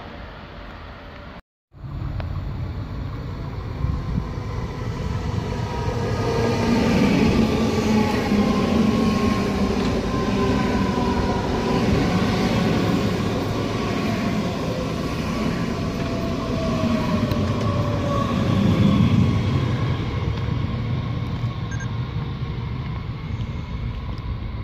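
Electric trains at a station platform: briefly a Class 101 locomotive-hauled IC approaching, then, after a short dropout, a DB Class 430 S-Bahn electric multiple unit running along the platform. Its traction motors whine with tones that slowly fall in pitch over a steady wheel-and-track rumble.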